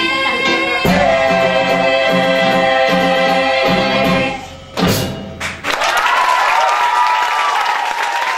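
A musical-theatre ensemble sings the final held chords of a song over a rhythmic accompaniment, cutting off with a last hit about five seconds in. The audience then breaks into applause and whoops.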